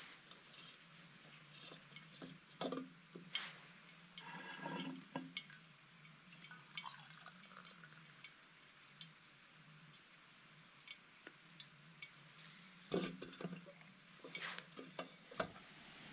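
Scattered faint clicks and clinks of metal cookware and utensils being handled, with a short clattery run about four seconds in and the loudest knocks near the end, over a steady low hum.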